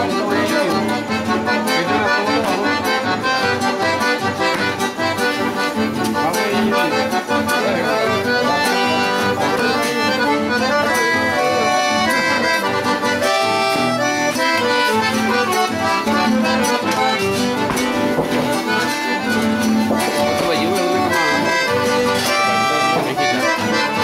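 Piano accordion playing a folk dance tune with acoustic guitar accompaniment.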